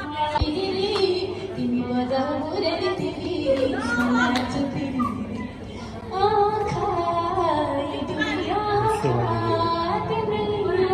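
A woman singing a song live, holding long notes that slide from pitch to pitch.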